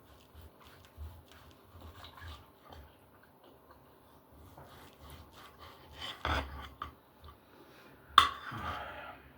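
Cutlery scraping and knocking against a plate during a meal of steak, with a louder scrape about six seconds in and a sharp clink just after eight seconds, the loudest sound.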